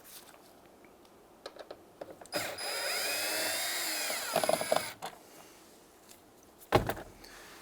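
A cordless drill/driver backs out a Phillips screw in a door panel, its motor whine running for about two and a half seconds and wavering in pitch as the speed changes. A few light clicks come before it, and there is a single knock near the end.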